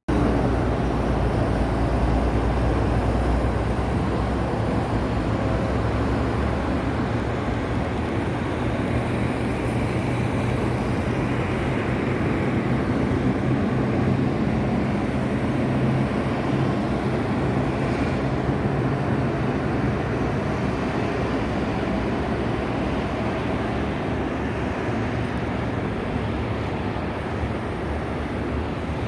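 Steady highway traffic noise, an even road noise with a low engine drone underneath.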